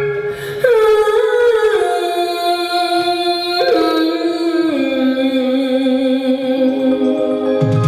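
A song from a stage musical: long held sung notes with musical backing, the melody stepping down in pitch every second or so.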